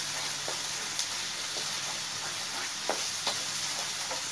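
Thick masala gravy sizzling in a non-stick frying pan while a wooden spatula stirs it briskly, with a few light knocks of the spatula against the pan.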